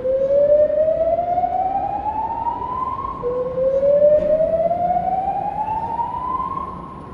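Building fire alarm evacuation tone: a slow rising sweep, sounded twice, each climbing steadily for about three seconds before starting again low.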